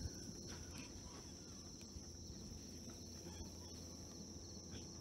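Faint, steady, high-pitched insect chirring, with a low rumble of outdoor background underneath.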